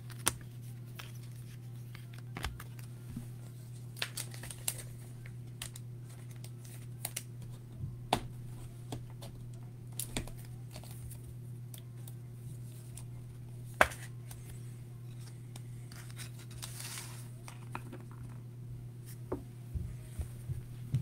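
Scattered sharp clicks and short scratchy plastic rustles of a trading card being handled in a clear plastic sleeve and rigid top loader and set on a plastic display stand, the loudest click about two-thirds of the way through. A steady low hum sits underneath.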